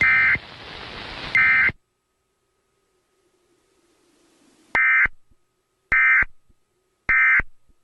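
Emergency Alert System end-of-message data bursts: short, loud, buzzy digital tones, two about a second apart at the start, then after a pause of about three seconds three more about a second apart, marking the end of the test alert.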